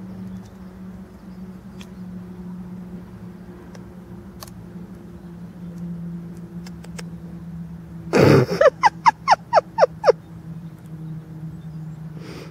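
A loud, noisy burst followed at once by a quick run of about seven short calls, each falling in pitch, likely an animal calling, heard over a steady low hum.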